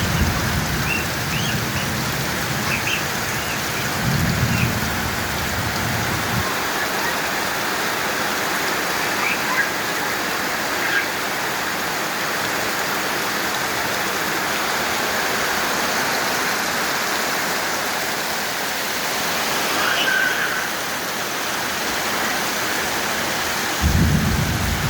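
Heavy rain pouring down steadily, a dense even hiss. Low rumbles come and go in the first seconds, a few seconds in, and again near the end, with a few short high chirps at the start.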